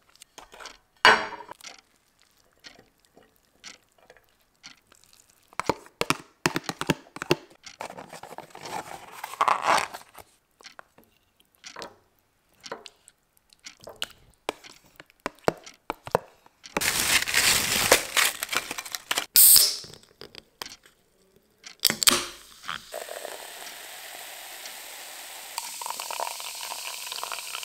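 Clinks, knocks and scrapes of a spoon and plastic takeaway tubs as food is served into a ceramic bowl, with a few seconds of loud noise about two-thirds through. Near the end, cola is poured from a can into a glass with a steady fizzing hiss.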